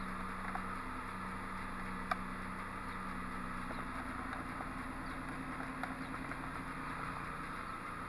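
Ford Edge engine idling steadily in park, heard from inside the cabin, with a single click about two seconds in.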